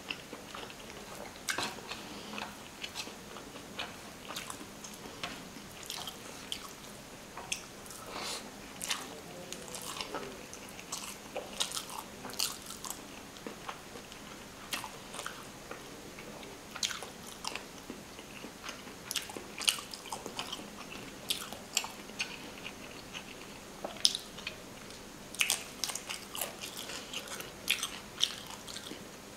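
Close-miked eating sounds: a person chewing mouthfuls of rice and fish curry eaten by hand, with many irregular wet mouth clicks and smacks, coming thicker near the end.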